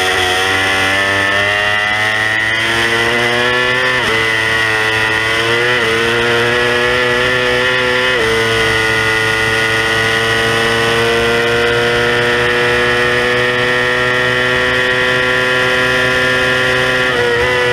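Stock 2018 Yamaha R6's 600 cc inline-four engine at full throttle, heard onboard with wind noise. The pitch climbs through the gears, dropping back at each upshift three times in the first eight seconds, then holds high and steady down the straight before stepping down near the end as the rider shifts down.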